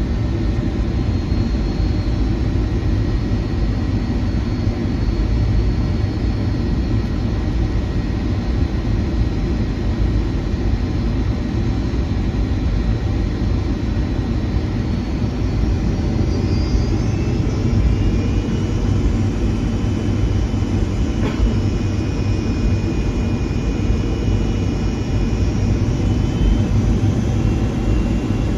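Jet airliner cabin noise inside a Boeing 757-200: a steady low rumble of the engines and airframe, with faint whining engine tones that begin rising in pitch about halfway through. A single sharp click comes about three quarters of the way through.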